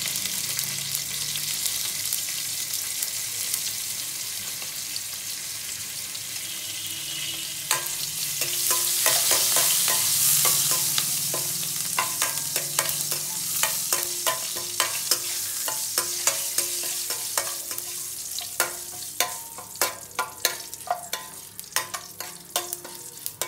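Hot oil sizzling steadily in a stainless steel kadai with a tempering of mustard seeds, cumin, urad dal and curry leaves frying in it. From about eight seconds in, a spatula stirs the tempering and knocks against the steel pan, giving many sharp clicks that come thicker towards the end.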